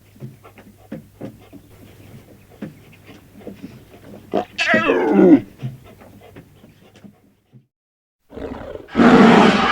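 Cartoon dinosaur sound effects: soft scattered grunts and clicks, then a loud call that falls steeply in pitch about four and a half seconds in, then a loud roar starting near the end.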